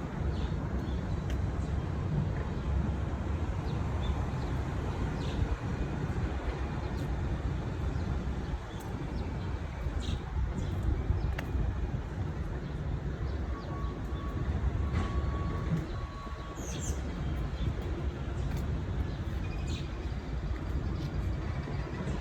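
Steady low rumble of city traffic, with a few brief bird chirps.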